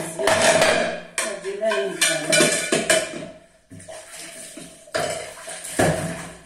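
Dishes and cutlery clinking and clattering at a kitchen sink during washing-up, with short knocks of crockery set down, and a voice talking at times.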